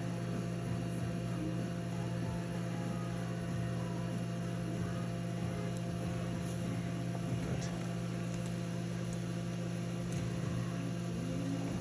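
Steady electrical hum with a few faint, scattered clicks.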